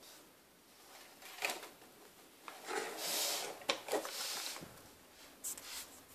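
Handling noise: fabric rustling and rubbing, broken by a few sharp clicks and knocks, loudest in the middle.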